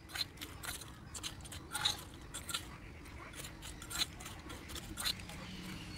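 Tiny spoon stirring crisp fried potato chips in a small clay bowl: faint, scattered clicks, scrapes and crackles as the chips are turned.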